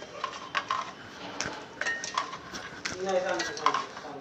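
Kitchen utensils and dishes being handled: an irregular run of sharp clinks and knocks.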